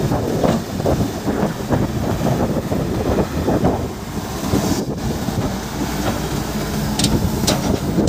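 Sumitomo SH120 hydraulic excavator's diesel engine running under load as it works its bucket in deep wet mud, the machine bogged down and trying to free itself. Wind buffets the microphone, and two short sharp clicks come near the end.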